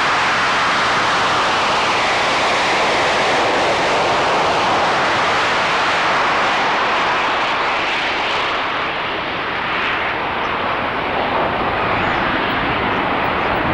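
Boeing B-52G Stratofortress's eight J57 turbojets at full takeoff power as the bomber lifts off and climbs away: loud, steady jet noise whose high hiss fades about eight seconds in as it draws off.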